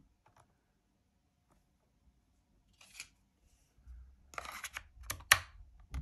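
Quiet handling of a Yoto Player: a short rustle about three seconds in, then a cluster of scrapes and clicks as a Yoto card is slid into the player's top card slot, the sharpest click near the end.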